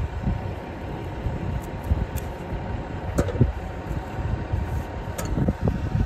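Steady low rumble of an idling tractor engine, with a few light clicks as the Case square baler's twine knotter is worked by hand to clear jammed string.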